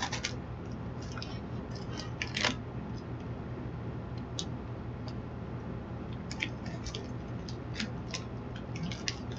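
Someone biting and chewing a crunchy hot-cheese corn puff snack: scattered short, crisp crunches at irregular intervals over a low steady hum.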